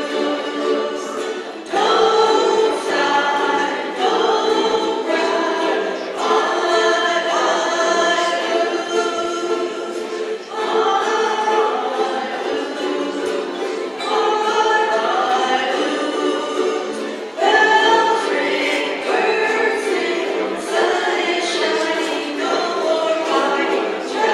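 A small group singing a song together to strummed ukulele accompaniment, in phrases with fresh starts about two seconds in and again near the seventeen-second mark.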